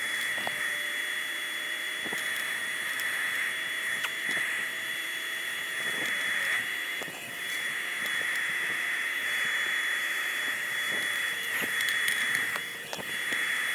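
Small forge hissing steadily as air is forced through its fire, with a thin steady high whine under it and a few light metal clicks of tongs in the fire. The hiss dips briefly twice.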